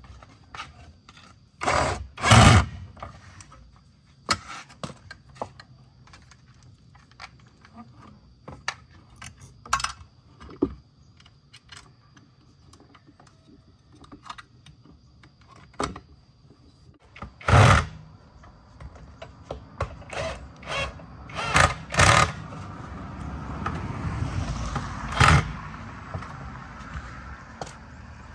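Repair work on a washing machine: scattered clicks, taps and knocks of tools and parts being handled, with a handful of loud knocks. A faint steady high tone runs through the first two-thirds, and a rushing hiss rises and fades near the end.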